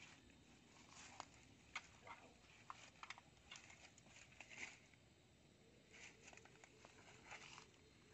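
Near silence with faint rustling and scattered light clicks from hands and feet moving in grass and dry fallen leaves.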